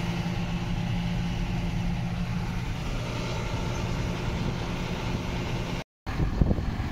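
John Deere 6155R tractor's six-cylinder diesel engine running steadily, heard from inside the cab. Near the end the sound cuts out briefly and gives way to wind buffeting the microphone.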